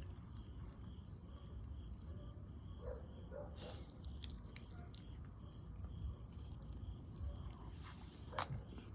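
Sour Pop Rocks popping candy crackling faintly in a person's mouth, with scattered small pops, and a soft grunt about three seconds in.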